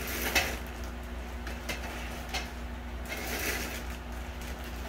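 Plastic bags rustling and crinkling in a few short bouts as bagged parts are lifted out of a cardboard box, over a steady low hum.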